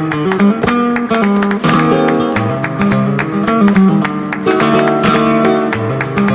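Instrumental music led by a plucked string instrument playing quick runs of notes.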